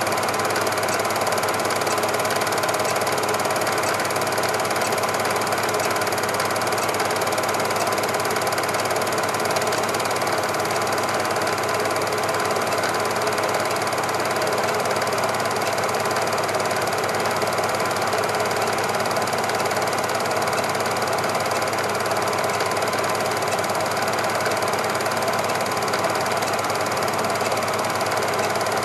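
Cine film projector running, a steady fast mechanical clatter with a constant hum and no change across the picture cuts.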